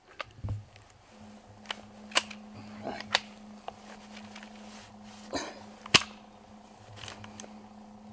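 Scattered sharp clicks and knocks of a hunting rifle being handled, the loudest about two and six seconds in, over a faint steady low hum.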